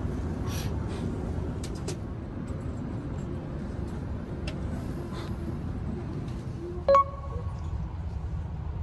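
Steady low hum inside a shinkansen passenger car, with a few faint clicks and one short, bright ping about seven seconds in.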